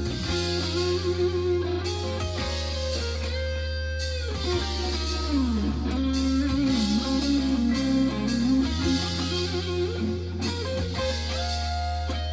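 Electric lead guitar, an EVH Wolfgang, soloing over a rock backing track with drums and bass. The lead bends into notes and holds long notes with wide vibrato.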